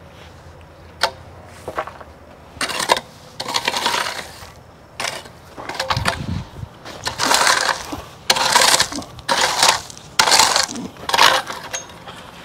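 Stone dust on a patio base being scraped and pushed with hand tools in a series of about nine rough strokes, roughly one a second. Two sharp clicks come about a second in.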